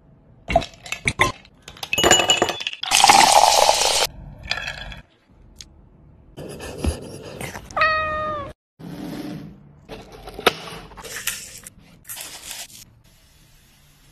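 A string of short clinks, clicks and noisy splashes from ice and liquid going into a glass, the loudest a noisy rush about three seconds in. About eight seconds in, a cat gives one short meow.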